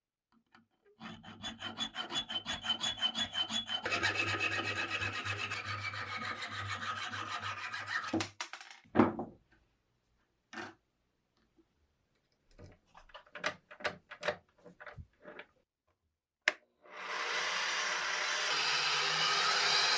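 Hand abrasive work on a part: quick, even rubbing strokes that merge into a continuous rasping scrape. About nine seconds in comes a loud knock, then scattered clicks and taps. A steady rasping noise starts near the end.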